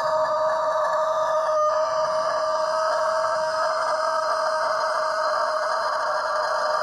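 Black rooster crowing: one very long crow held at a steady pitch, with a brief break under two seconds in.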